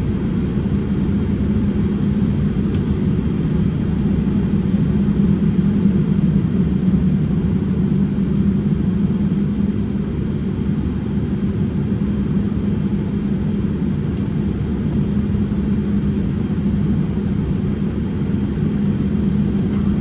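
Steady low cabin rumble of a Boeing 787-8 in its initial climb: the Rolls-Royce Trent 1000 engines at climb thrust and airflow over the fuselage, heard from a window seat over the wing.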